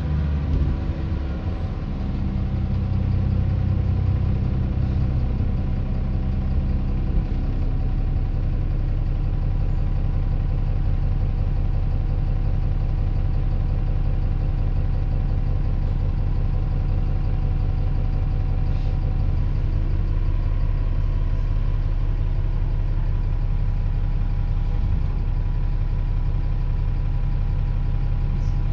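Diesel engine of an Alexander Dennis Enviro 400 double-decker bus running, its note shifting over the first several seconds and then holding steady.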